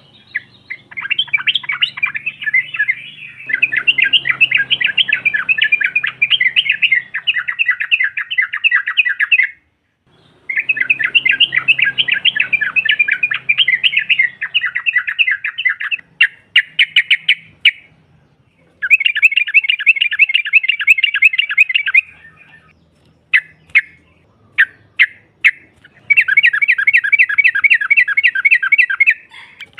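Female yellow-vented bulbul giving its rapid chattering 'ropel' call: long runs of fast repeated notes, broken by short pauses and a few single notes.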